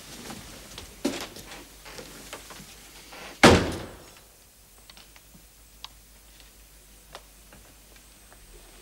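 A few light knocks, then a door shutting with a single loud thud about three and a half seconds in, followed by a few faint clicks.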